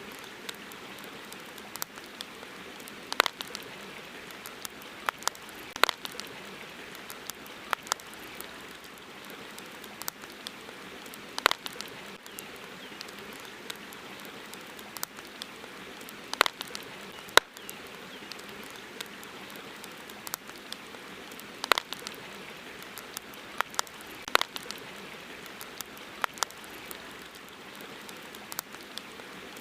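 Campfire crackling: irregular sharp pops and snaps, a loud one every few seconds among smaller ticks, over a steady hiss.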